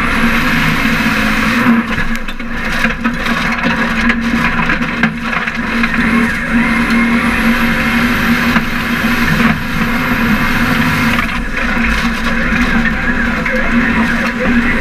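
Formula Offroad buggy's engine held at high, steady revs under load as it climbs a steep dirt bank, with scattered knocks from dirt and stones flying around the car.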